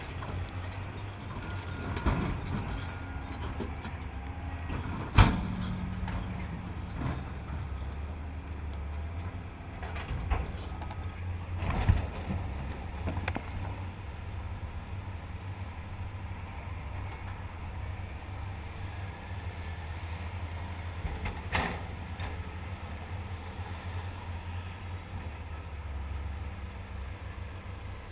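Excavator and dump truck diesel engines running with a steady low drone, broken by several loud clanks and thuds of heavy machinery at work. The loudest clank comes about five seconds in.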